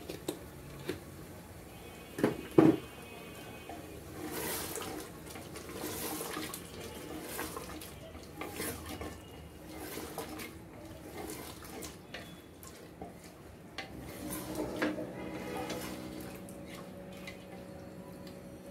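Wooden spoon stirring and scraping a thick mix of beef liver and potatoes in an aluminium pressure cooker, with two sharp knocks against the pot a couple of seconds in, then irregular scraping and stirring.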